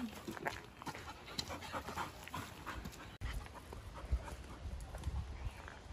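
A dog panting in short, quick breaths, with a low rumble joining about three seconds in.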